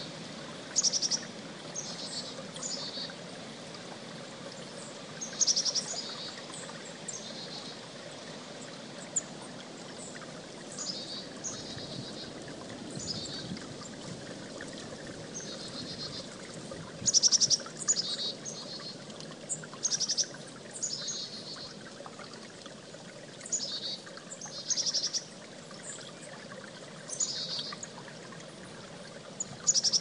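A creek running steadily, with a chickadee calling over it: short high calls every few seconds, some as quick runs of repeated notes.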